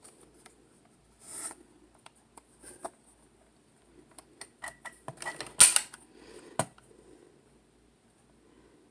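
Plastic clicking and knocking from a Nerf blaster and its dart clip being handled, with a short rustle early on and a busy run of clicks in the middle. The loudest sharp snap comes about five and a half seconds in, and another follows about a second later.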